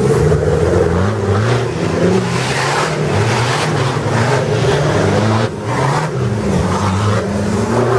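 Off-road trial 4x4's engine revving up and down over and over, its pitch rising and falling every second or so, with a brief drop in throttle a little past the middle.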